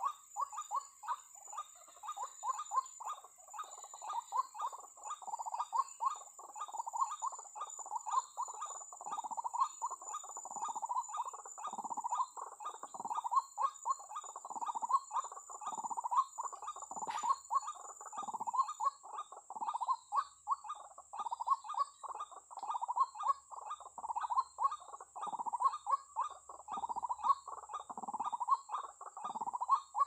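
White-breasted waterhen (ruak-ruak) calls: rapid repeated call notes, many a second, running on without a break. A steady high whine sounds behind them and thins out about two-thirds of the way through.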